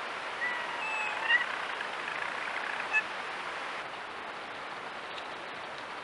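Steady outdoor hiss with a few faint, short high chirps in the first three seconds; the hiss drops slightly about four seconds in.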